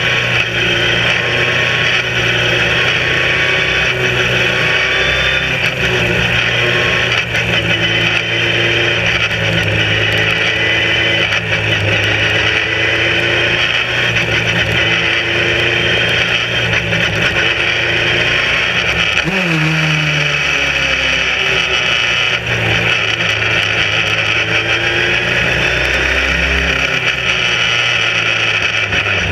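Sbarro Spyder racing car's engine heard from its open cockpit at racing speed, the pitch climbing and falling again and again as it goes through the gears. About two-thirds of the way in the engine note drops sharply as the car slows.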